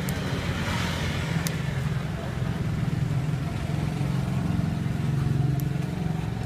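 An engine running steadily with a low hum, with a few brief clicks over it.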